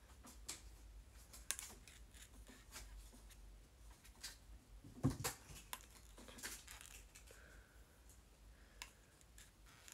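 Faint rustling of hair and scattered light clicks as bangs are curled with a heated hair iron, with one louder bump about five seconds in.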